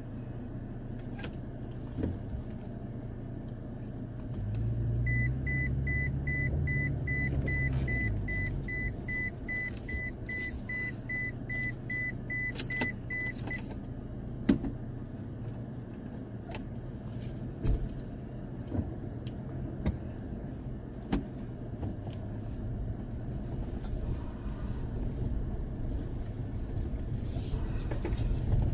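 Four-wheel-drive pickup truck heard from inside the cab, its engine running with a rise and fall in revs about five seconds in. An electronic warning beep pulses about three times a second for some eight seconds, and scattered knocks come from the truck moving over rough dirt ground.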